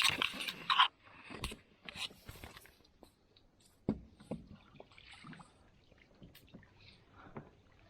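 Crab pot being handled in a small aluminium boat: a loud rush of noise in the first second, then scattered knocks and scrapes.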